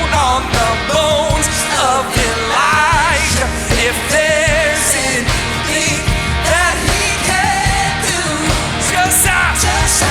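Worship band playing a rock-style song, with a lead vocal sung over drums, bass and guitars.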